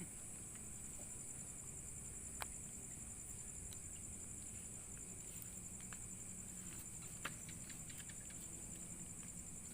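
Faint, steady high-pitched chorus of night insects, with a couple of soft clicks.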